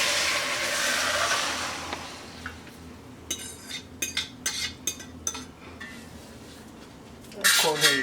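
Pieces of seasoned pork sizzling in hot oil in a pot, the sizzle loud at first and dying down over the first two seconds. Then a run of sharp clinks and knocks of metal against the pot.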